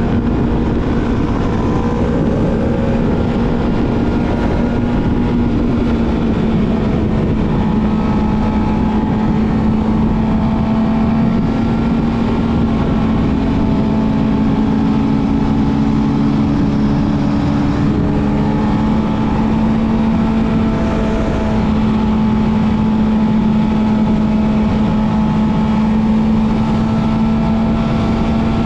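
Yamaha YZF-R6 inline-four sport bike with a full-system aftermarket exhaust, running steadily at nearly constant revs while cruising, with only small shifts in pitch.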